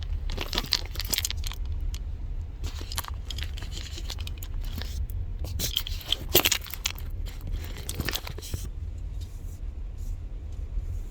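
Several short bursts of crunching and scraping over a steady low rumble.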